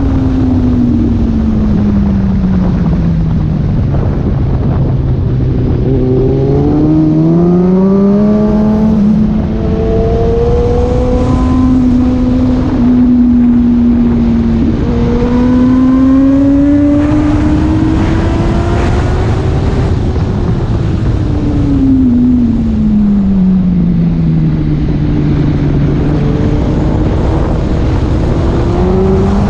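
Yamaha R1's inline-four engine heard on board at speed over heavy wind rush. Its pitch falls away as the rider slows for a corner, then climbs and holds through the middle with a brief break near the halfway point. It falls again about two-thirds of the way in and rises once more near the end.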